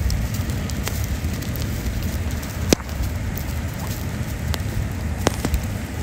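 Campfire crackling, with a few sharp isolated pops (the loudest a little under three seconds in) over a steady low rumbling noise.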